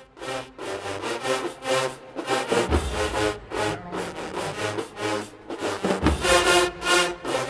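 Marching band brass playing short, punchy notes in a quick rhythm, with heavy low drum hits twice.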